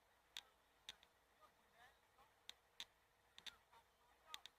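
Faint, distant voices calling out, heard as brief rising-and-falling shouts, with scattered sharp clicks.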